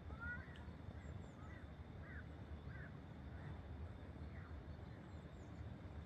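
Birds calling: a run of short, quick chirps repeated every half second or so, with fainter high chirps, over a low steady rumble.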